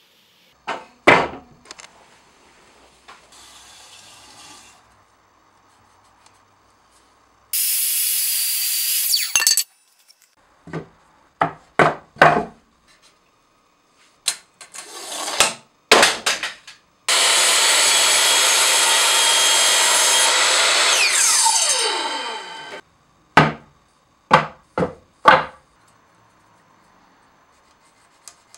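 Workshop handling sounds: a series of sharp knocks of wooden boards and tools being set down and moved. There is a short high-pitched whirring burst about seven seconds in. Later a miter saw runs loudly for about six seconds, its pitch falling as the motor winds down.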